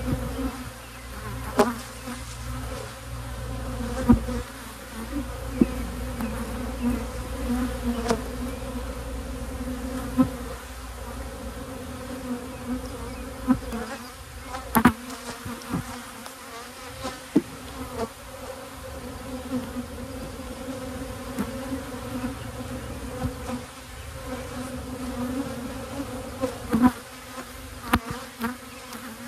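Honey bees buzzing in a steady hum over an open hive, with bees flying close past the microphone. Sharp clicks and knocks recur through it as wooden frames are worked with a hive tool.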